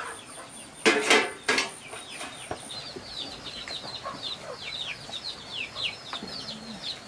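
Chickens: two loud, harsh squawks about a second in, then a steady run of rapid high, falling peeps from chicks.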